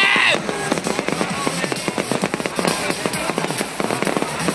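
Fireworks display going off: a dense, rapid run of crackling pops and bangs, with a voice shouting at the very start.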